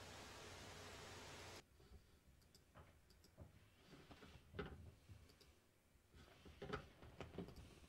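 Faint steady hiss that cuts off suddenly about a second and a half in, then near silence with a scattering of faint, irregular clicks.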